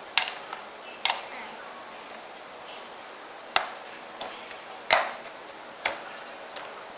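Sharp taps and knocks of hard objects on a table, about five loud ones spread irregularly with a few lighter ticks between.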